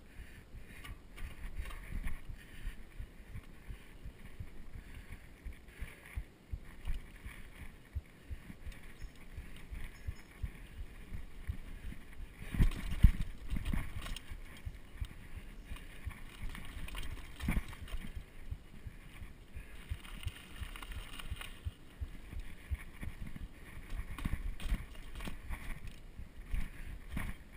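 Mountain bike being ridden over a timber log and grassy dirt track: the bike rattles and the tyres rumble with many small knocks and bumps. A few sharper knocks stand out, the loudest about halfway through.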